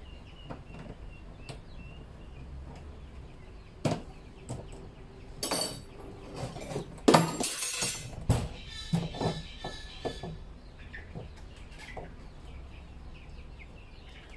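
Scattered knocks and plastic clatter as a cut-out hinged flap on a blue plastic drum is handled and fitted, loudest in a noisy scraping burst about seven seconds in. Chickens cluck faintly in the background.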